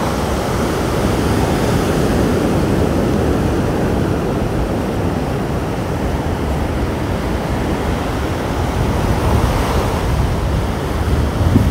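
Sea surf washing onto the beach, a steady noisy wash of waves, with some wind on the microphone.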